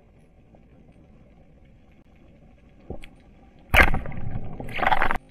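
Speargun fired underwater: a faint click, then a moment later a loud sharp crack of the shot, followed by about a second and a half of ragged clattering noise that cuts off abruptly.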